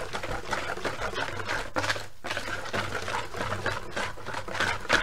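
Wire balloon whisk beating a thick yogurt marinade in a plastic bowl: quick, rhythmic wet strokes with a brief pause about two seconds in.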